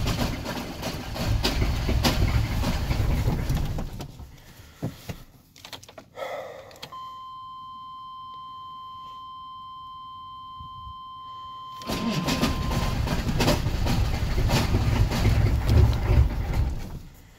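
GM 6.5-litre diesel V8 being cranked over by its starter on a weak battery, about four seconds and then again for about five seconds, without catching. Between the two tries a steady electronic beep sounds for about five seconds.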